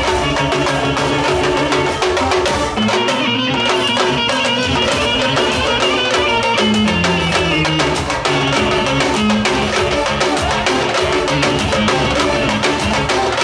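Live band music: a clarinet playing a melody over keyboard and a steady drum beat.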